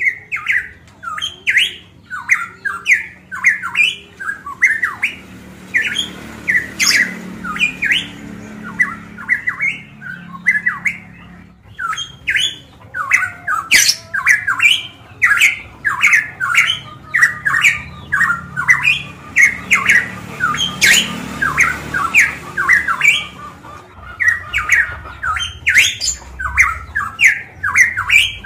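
Caged pitohui (cucak emas papua) calling loudly and without pause: a fast run of short, clear notes, several a second.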